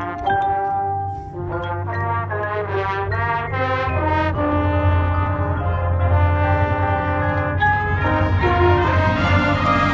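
Marching band brass section playing: a run of short, separated chords, then longer held chords, growing gradually louder.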